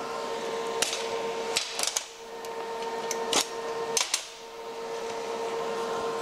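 Locking pliers being released and set down on a steel welding table: a series of sharp metal clicks and clanks, about seven in the first four seconds, over a steady hum.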